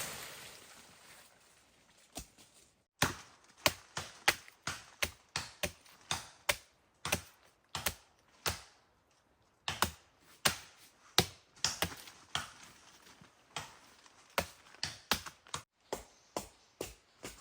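Repeated sharp chopping strikes of a blade, about one to two a second, with a short pause about halfway through.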